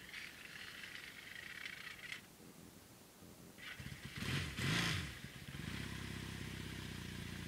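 Kawasaki KZ750 parallel-twin engine being cold-started after sitting: a short whirring crank on the starter, then a second crank about three and a half seconds in. It fires, revs up and back down, then settles into a steady idle.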